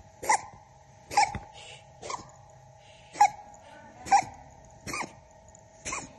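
Domestic cat coughing in a run of short, sharp coughs, about one a second, seven in all. A steady faint whine sits behind them.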